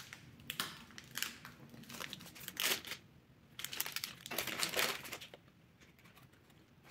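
Plastic snack-bar wrapper being torn open and peeled back, crinkling in short, sharp bursts through the first five seconds or so.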